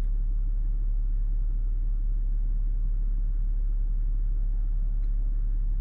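Steady low rumble with a constant deep hum underneath, unchanging throughout.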